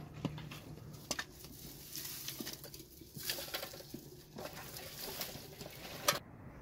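Dry twigs and brushwood rustling and crackling as they are gathered up by hand, with scattered sharp snaps and a louder snap about six seconds in.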